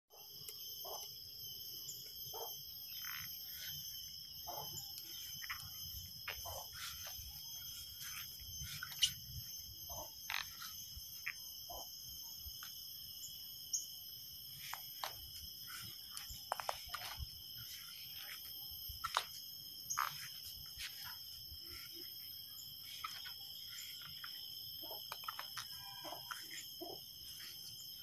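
Outdoor insect chorus: insects shrilling at several steady high pitches, with many short chirps and calls scattered through it and a faint low rumble underneath.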